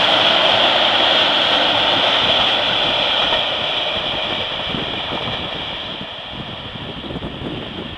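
Train running past on the rails and moving away, its wheel and rail noise fading steadily.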